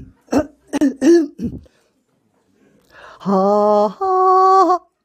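A performer's voice clearing the throat with several short coughs, then singing two held wordless notes, the second about an octave higher than the first.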